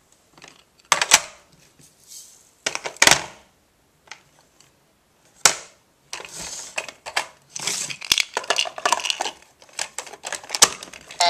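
Hard plastic toy pieces of a Fisher-Price Peek-a-Blocks truck knocking and clattering. There are a few sharp knocks about a second in, around three seconds and five and a half seconds, then from about six seconds a fast run of clicks and rattling.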